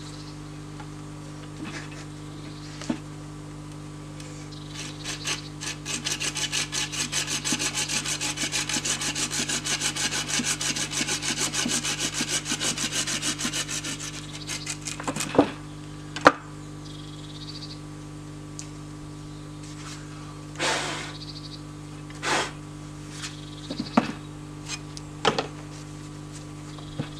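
Hand saw cutting through a green wooden stick in quick, even strokes for about ten seconds, then a few sharp knocks and rustles as the cut sticks are handled.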